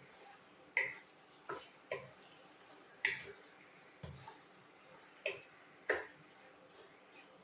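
A cooking spoon knocking against a pot while the chicken is stirred: about seven short, sharp clicks at irregular intervals.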